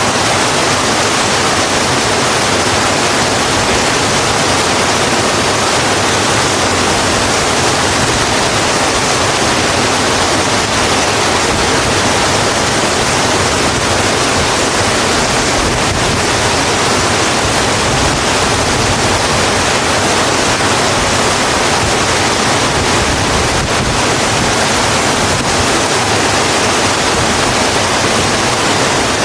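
Steady rain falling, a dense, even hiss with no single drops, thunder or changes standing out.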